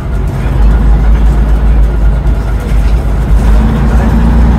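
Leyland Leopard bus's diesel engine pulling under load, heard from inside the saloon: a heavy low drone that gets louder about half a second in, with a steadier hum joining about three seconds in.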